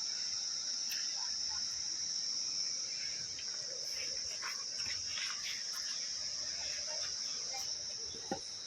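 Chorus of insects, crickets or cicadas, making a steady high-pitched drone. A faint tap comes near the end.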